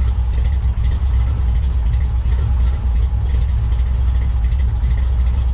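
Car engine idling: a steady low rumble.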